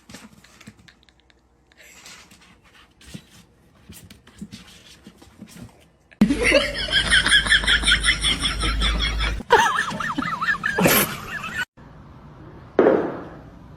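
Faint clicks and rustling, then a person laughing hard in rapid, high-pitched pulses for about three seconds, followed by further short loud bursts of laughter-like voice.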